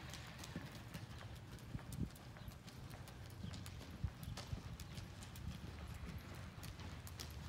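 Hoofbeats of a horse cantering on the soft dirt footing of an indoor arena: faint, irregular thuds, the loudest about two and four seconds in.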